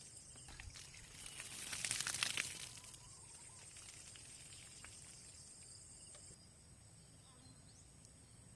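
A steady, high-pitched insect chorus, which thins out near the end, with a loud burst of crackly noise about a second and a half in lasting about a second.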